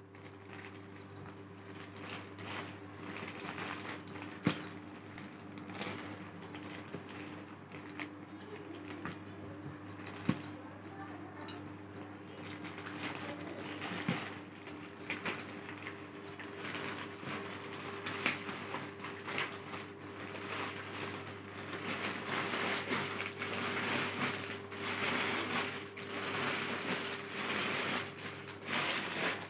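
A plastic courier mailer bag being handled and cut open, rustling and crinkling with scattered sharp clicks. The crinkling grows louder and busier in the latter part as a garment in a clear plastic cover is pulled out. A faint steady hum sits underneath.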